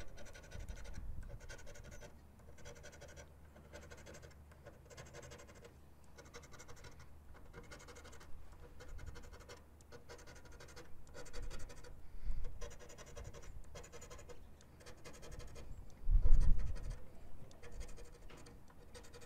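A paper lottery scratch-off ticket being scratched, in short repeated scraping strokes that come in runs with pauses between them; the coating on these tickets is hard to scratch off. A single dull thump about three-quarters of the way through is the loudest sound.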